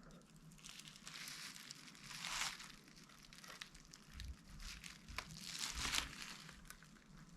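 Faint crinkling and rustling as the opened tablet and its parts are handled by hand, swelling twice, with a few small clicks.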